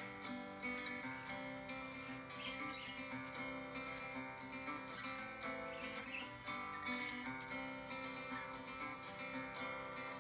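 Background music led by acoustic guitar, with one brief sharp click about halfway through.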